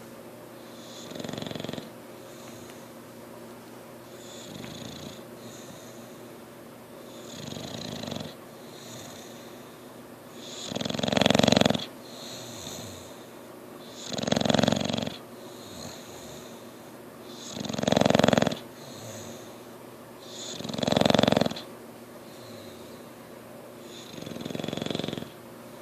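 English Bulldog snoring, about eight snores roughly three seconds apart. The four in the middle are the loudest.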